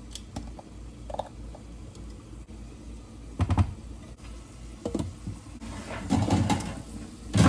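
Kitchen clatter: scattered knocks and clicks of utensils and cookware, busiest about three and a half seconds in and again near the end, over a steady low hum.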